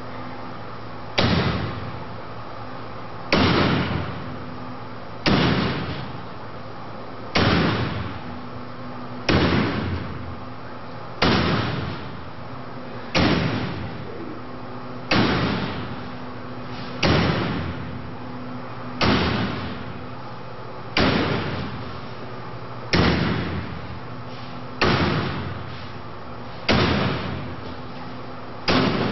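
Axe blows striking a woven metal-wire security drapery in a forced-entry test: about fifteen heavy strikes at a steady pace of one every two seconds, each dying away briefly.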